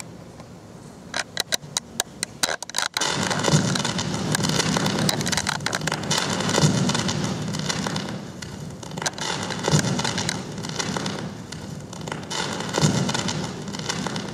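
A few scattered hand claps, then about three seconds in the instrumental backing track for the ballad starts over the hall's speakers, sounding heavily crackly, with low notes about every three seconds.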